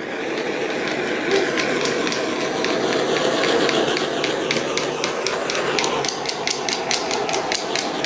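Handheld butane torch burning with a steady hiss as it is passed over wet acrylic paint. From about three seconds in, a quick run of sharp clicks comes about four times a second.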